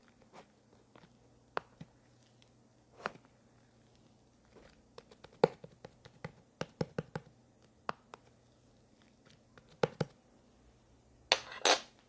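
Slime being squeezed and pressed by hand, giving scattered small pops and clicks, with a quick run of them in the middle and a longer crackling squish near the end.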